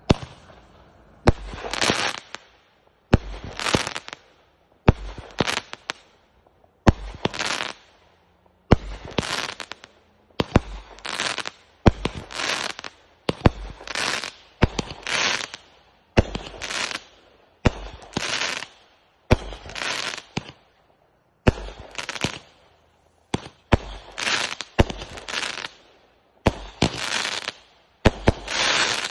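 Consumer aerial firework cake firing shot after shot, about one every two seconds: each shot a sharp launch thump followed by a crackling break in the air.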